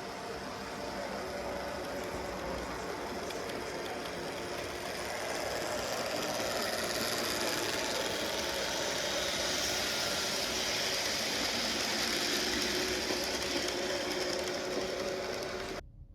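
N gauge model train running around the layout, its small electric motor whirring and wheels rumbling on the track. It grows louder about five seconds in and cuts off suddenly near the end.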